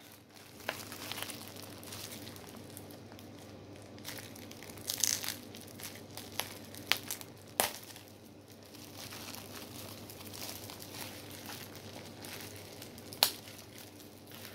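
Bubble-wrap packaging crinkling and rustling in fits and starts as it is twisted and pulled at by hand to get it open, with a few sharp clicks, the loudest near the end.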